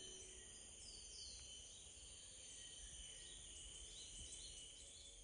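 Faint natural ambience: a steady high insect drone with a few short bird chirps, some falling and some rising, the whole fading out at the very end.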